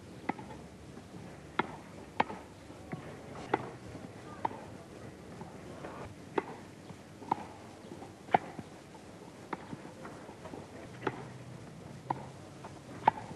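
Tennis ball being struck and bouncing on a grass court: sharp single knocks at uneven intervals, about one every second, over the steady hiss and low hum of an old film soundtrack.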